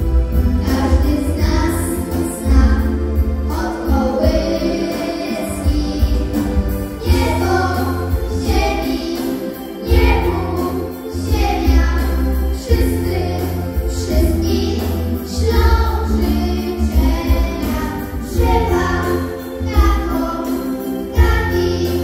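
A group of children singing together into microphones over an amplified instrumental backing track with a steady bass line.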